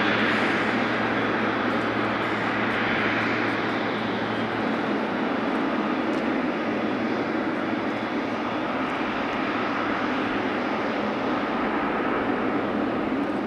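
Boeing 777-300ER's GE90 turbofan engines at taxi thrust: a steady jet whine and rush that eases slightly as the airliner rolls past.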